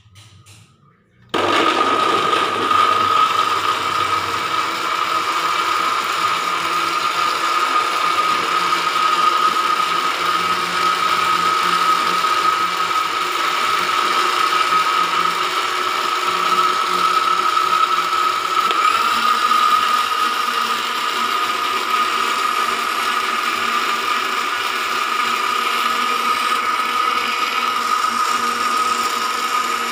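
Electric kitchen blender switched on about a second and a half in, its motor then running steadily at full speed with a high whine.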